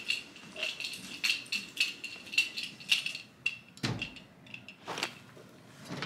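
Walking steps with a light metallic jingle on each stride, about three a second, then a heavy dull thump about four seconds in and a sharper knock a second later.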